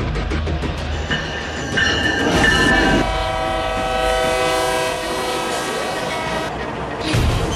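Freight locomotive's multi-chime air horn, a Nathan K5HLL on a BNSF GE ES44DC, sounding a long chord-like blast from about a second in until past six seconds, over the low rumble of the diesel locomotives.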